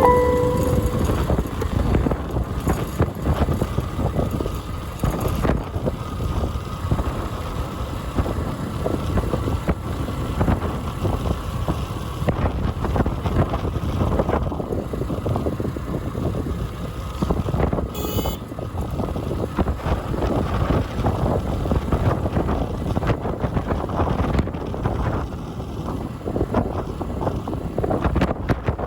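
Motorcycle engine running steadily while riding, heavily buffeted by wind on the microphone.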